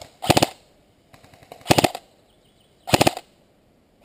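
Airsoft rifle firing three short full-auto bursts, each a rapid string of shots, about a second and a quarter apart. Fainter bursts from another gun come between them.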